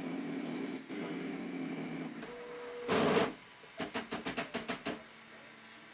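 Flashforge Finder 3D printer's stepper motors running with a steady buzz as the build plate rises. About three seconds in comes a short harsh burst, then a rapid run of about ten knocks over a second: the malfunction in which the printer drives the print head into the bed and gouges it.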